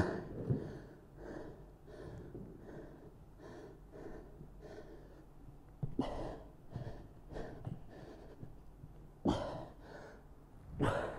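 A man breathing hard through a set of dumbbell squats, a soft puff of breath about once a second, with stronger exhalations about six and nine seconds in.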